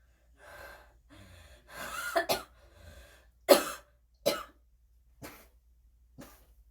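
A woman's fit of coughing, a phlegmy cough from a chest she says is full of phlegm. A run of coughs builds to the loudest, sharp cough about three and a half seconds in, followed by a few smaller coughs about a second apart.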